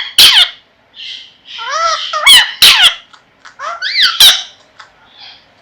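Pet green parrot giving harsh, crow-like calls in three short bouts, each with rising and falling pitch glides.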